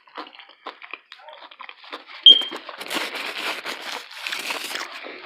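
Close-mic eating sounds from a taco being chewed: scattered wet chewing clicks, a short high squeak about two seconds in, then a stretch of dense crunching and crinkling.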